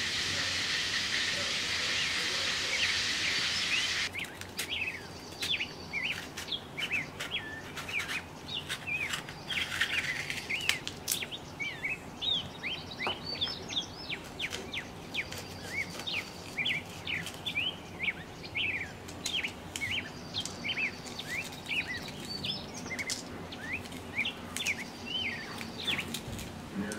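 A steady hiss for the first four seconds, then small birds chirping and twittering in quick, repeated short calls. Occasional light ticks of a knife on a plastic cutting board come through as green peppers are slit open.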